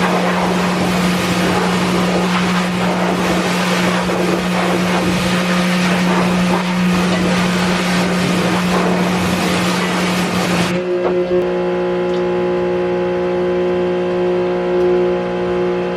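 Pressure washer running with its motor humming steadily under a loud hissing spray, which cuts off about eleven seconds in when the spray stops, leaving the motor running on its own.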